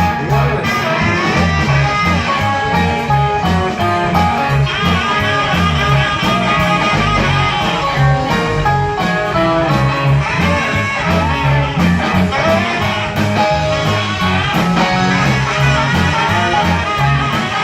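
A live band playing an instrumental break: a guitar carries the melody over bass and drums keeping a steady beat.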